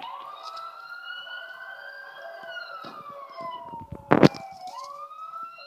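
Emergency vehicle siren wailing: a slow rise in pitch, a slow fall, then a quick rise again. A loud knock about four seconds in.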